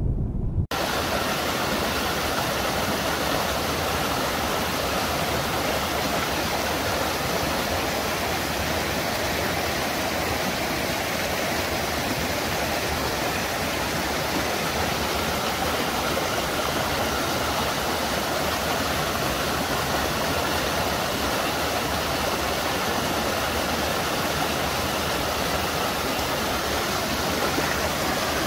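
Steady rushing of shallow river water pouring over rock ledges and small falls, cutting in abruptly about a second in.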